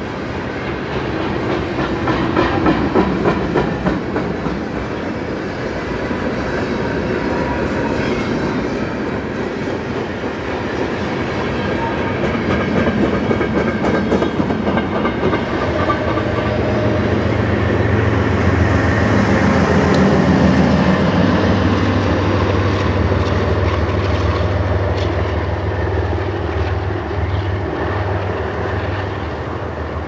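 Freight train of covered hopper cars rolling past, steel wheels clicking and clacking over the rail joints. A steady low hum joins about halfway through.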